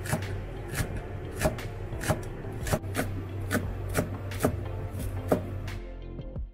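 Kitchen knife slicing green onions on a cutting board: a series of crisp, crunchy chops, roughly one every half to two-thirds of a second, over a low steady hum.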